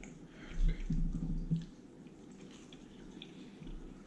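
Quiet eating sounds: chewing with small wet mouth clicks, and a brief low hummed voice sound early on.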